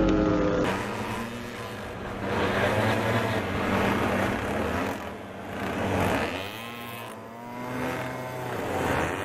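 Several small two-stroke string-trimmer engines on RC racing boats buzzing across the water. Their pitch rises and falls as the boats speed up, pass and turn, swelling in loudness three times.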